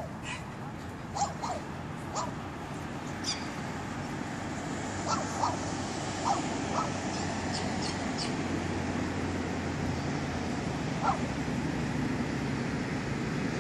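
A dog gives short, high whines and yips, singly or in quick pairs every second or two, over a steady low background rumble.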